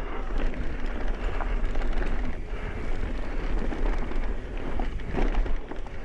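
Mountain bike riding fast down a dirt singletrack: wind buffeting the handlebar camera's microphone over tyre noise on the dirt, with the bike rattling and knocking over bumps.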